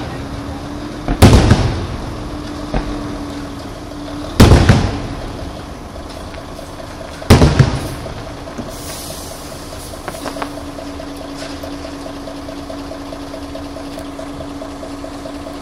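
Aerial firework shells bursting overhead: three loud booms about three seconds apart, each trailing off in a rumble. They are followed by a softer, brief crackling and a faint steady hum.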